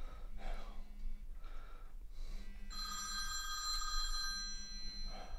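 A telephone ringing: one ring of about two seconds, starting just before the middle, with a faint low hum pulsing on and off beneath it.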